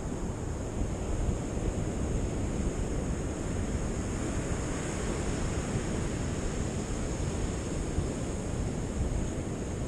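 Sea surf breaking on a sandy beach, a steady rush of waves, with wind buffeting the microphone.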